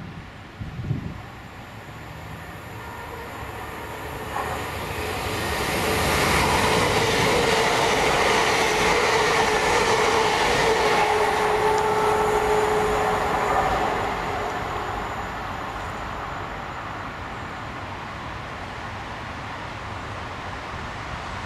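A train passing: its sound builds over a few seconds, stays loud for about eight seconds with a steady tone running through it, then eases off.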